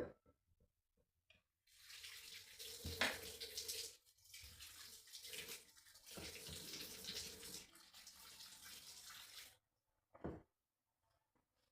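Water running from a tap into a sink for about eight seconds, with a brief break partway through, then shut off; a short knock or splash follows.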